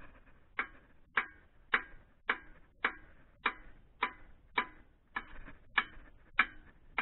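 Hammer striking steel on a Fiskars plough: a steady run of about a dozen evenly spaced, ringing metal blows, a little under two a second, starting about half a second in.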